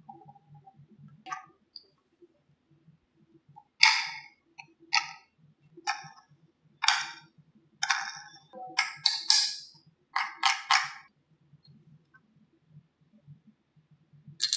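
Marbles clacking along a wooden marble run: a run of sharp, ringing clacks about one a second, with a few quicker double and triple clacks near the end.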